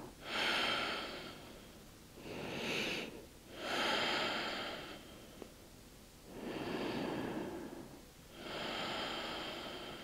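A woman breathing deeply and audibly while holding a yoga stretch: slow, long inhales and exhales, five swells of breath in a row.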